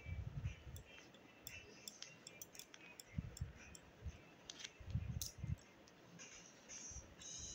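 Faint handling sounds of hands working over cloth: a few soft low thumps, near the start, about three seconds in and around five seconds in, with scattered light clicks throughout.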